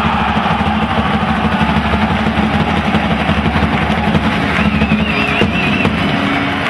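Ice-hockey arena goal horn sounding as one long steady blast after a goal, with background music under it.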